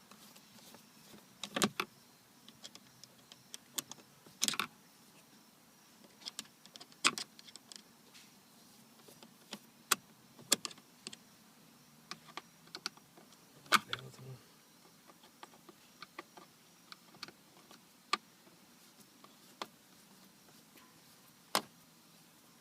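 Irregular sharp clicks and light taps of screws and plastic dashboard trim being handled while screws are taken out of a car's center dash panel.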